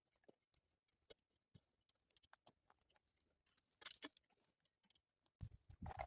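Faint, scattered crackling and rustling of dry twigs and leaves being gathered up, with a short crackly burst about four seconds in and louder crackles and thumps near the end.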